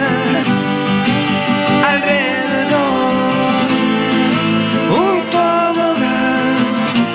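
Acoustic band playing: strummed acoustic guitar and bowed violins, with a man's voice singing sliding phrases about two and five seconds in.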